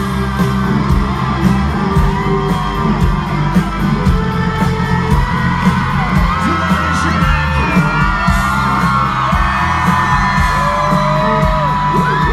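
Live country band playing an instrumental break with heavy bass and steady drum hits, while the concert crowd whoops and yells over it.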